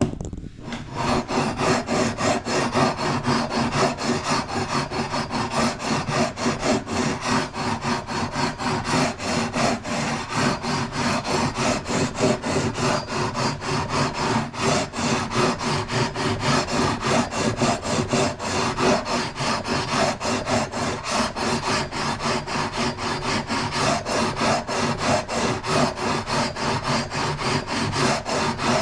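A hand tool worked on wood in rapid back-and-forth strokes, a steady rasping rub of abrading or cutting wood during luthier repair work. It starts abruptly and keeps an even rhythm throughout.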